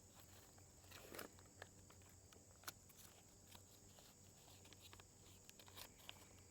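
Near silence, with faint scattered ticks and rustles of sandpaper being handled and wrapped around a sanding block.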